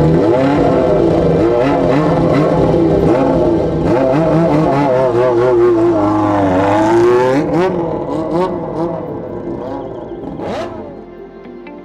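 Kawasaki Z400 inline-four motorcycle engine revved again and again in quick throttle blips, its pitch swinging up and down in the rhythmic style of a bōsōzoku 'call'. After about seven seconds the revving dies away, with a couple of last blips.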